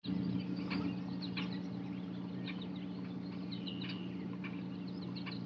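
Small birds chirping intermittently over a steady low hum.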